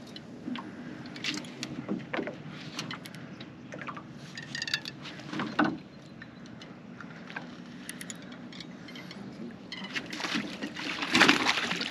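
Water sloshing against a fishing boat's hull, with scattered small clicks and knocks over a faint steady low hum.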